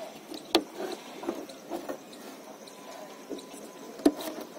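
Plastic clicks and taps as a hand works the Volkswagen Polo tail light housing and its wiring connector clip to free it. Two sharp clicks, one about half a second in and one near the end, with softer taps between.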